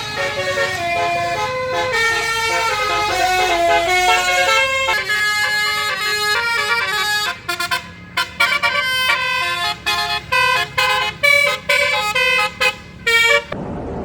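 A bus's basuri musical horn playing a tune: several horn notes sounding together and stepping through a melody. From about halfway, the notes turn short and separated, with brief gaps between them.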